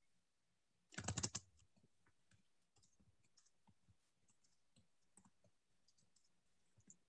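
A quick cluster of computer mouse clicks about a second in, then faint scattered ticks over near silence.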